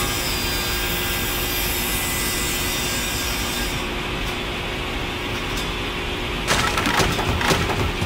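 Horizontal band sawmill running, its blade sawing lengthwise through a log with a steady hum and a high hiss for the first few seconds. About six and a half seconds in, a burst of loud clattering knocks lasting about a second.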